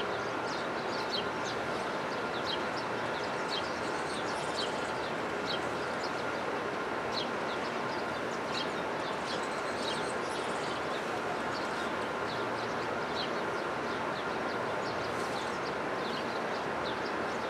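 Small birds chirping in many short, high notes, scattered irregularly, over a steady background hiss and rumble.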